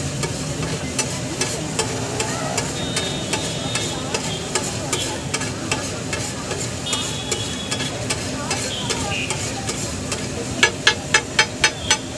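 Flat metal spatula scraping and stirring spices sizzling in fat on a large flat griddle (tawa), with scattered clicks of the blade on the metal. Near the end comes a quick run of about six sharp clanks, the spatula striking the griddle about four times a second.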